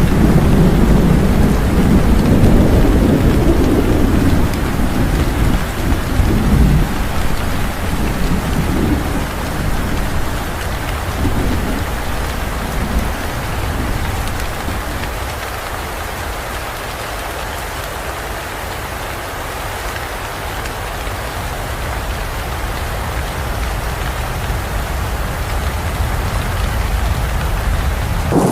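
Steady heavy rain with a long roll of thunder rumbling low in the first few seconds and fading away by about the middle, leaving the rain alone.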